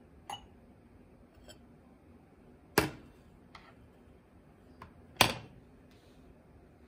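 Crockery clinking on a meal tray as a plate cover is handled over a soup bowl: a few light clicks and two sharp, louder clacks, about three and five seconds in.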